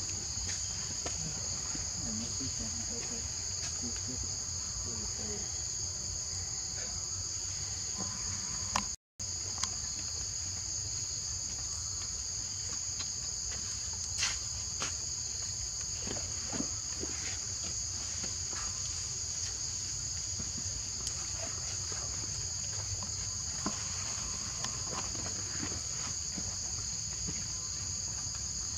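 A steady, high-pitched insect chorus drones without a break, cut off for a split second about nine seconds in, with a few faint clicks over it.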